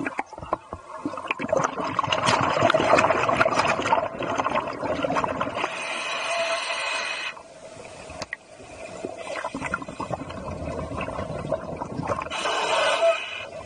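Scuba diver breathing underwater through a regulator, with exhaled air bubbling and gurgling. There is a long loud bout in the first few seconds, a steadier hissing breath around the middle, and another breath near the end.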